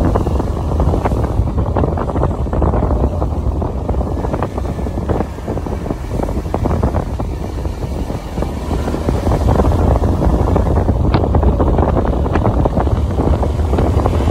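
Wind buffeting the microphone of a phone riding on a moving motorbike, a loud steady low rumble with the engine and tyre noise underneath it.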